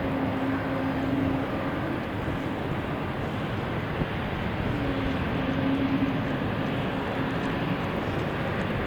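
Airliner engine noise, a steady rush with a low hum that comes up twice.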